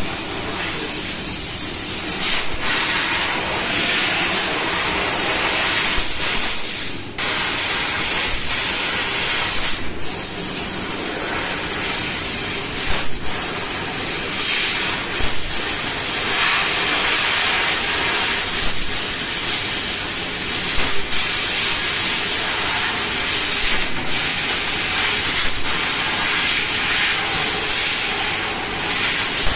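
Fiber laser cutting machine cutting sheet metal: a steady hiss from the assist-gas jet at the cutting head, with a few brief breaks.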